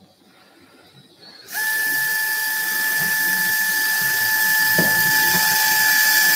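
Surgical power driver starting up about a second and a half in and running with a steady high whine as it drives a screw into bone.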